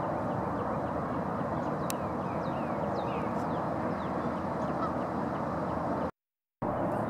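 Geese honking, many short calls over a steady rushing background. The sound cuts out for about half a second near the end.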